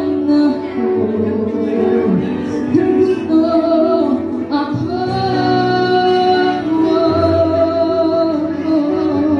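A young woman singing a Tagalog song into a microphone, holding long notes, over electric guitar accompaniment through a PA system.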